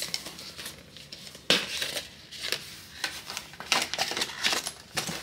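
Packaging being handled by hand, crinkling and rustling in irregular bursts, with the loudest crackle about a second and a half in.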